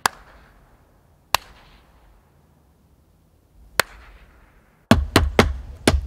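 Single hand claps, three of them a couple of seconds apart, each ringing out with a long echoing tail. About five seconds in, a quick run of sharp, loud knocks begins.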